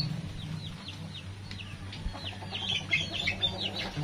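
A flock of young chickens, about three months old, peeping and clucking: many short, high, falling peeps that thin out for a moment and crowd together again in the last second and a half.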